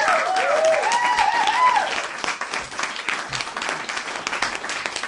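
Audience applauding, with one voice cheering over the clapping in the first two seconds.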